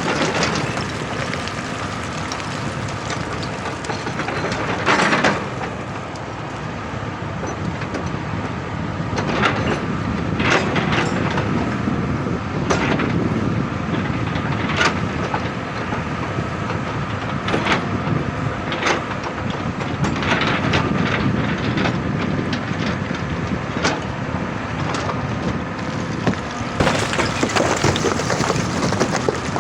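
Excavator engine and hydraulics working steadily under load, with irregular sharp cracks and knocks of the bucket striking and breaking rock.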